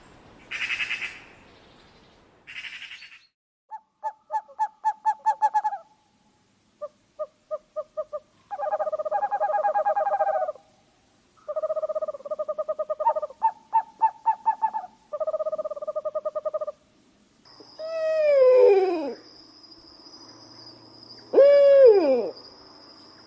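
Recorded bird calls: two short rasping notes, then several runs of fast-repeated pitched notes, then loud calls that drop steeply in pitch near the end, over a faint steady high tone.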